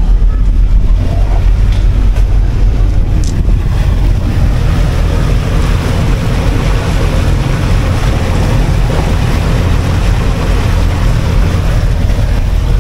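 Wind rushing over the microphone on the open bow of a moving lake cruise boat, over the steady low drone of the boat's engine and water rushing along the hull.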